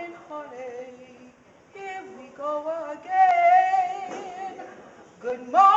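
A woman singing solo in a slow ballad, in phrases broken by short pauses, with a long held note in the middle.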